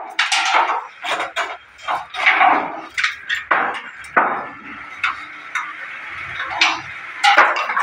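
Irregular knocks, clanks and scraping of wooden shuttering boards and steel props as concrete formwork is worked loose from under a slab.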